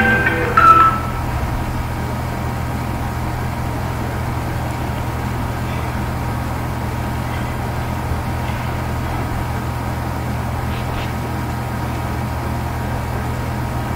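Steady low hum, unchanging, carried as background noise in the recording, with a brief bit of voice in the first second.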